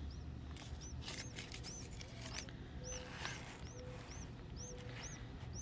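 A hatchling bird peeping repeatedly: short, high, arched cheeps about two to three a second, the begging calls of a hungry nestling. Some rustling of twigs being handled near the start and around the middle.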